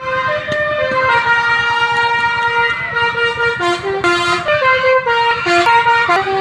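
Basuri 'telolet' musical air horn on a tour bus playing a tune: loud held notes, several at once, stepping up and down in pitch.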